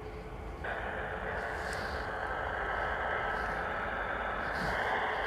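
Boeing 737 jet engines running at taxi power: a steady rushing hum with a faint constant whine.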